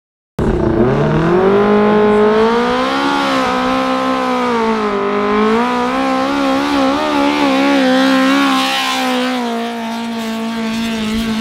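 Engine of a home-built 500 kg free-class garden-pulling tractor running flat out under load as it tows the weight-transfer sled down the track, its pitch wavering up and down as the load and wheel grip change.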